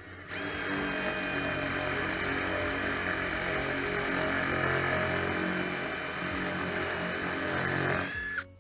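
Handheld electric power tool motor running steadily under load with a high whine for about eight seconds, then winding down as it is switched off near the end.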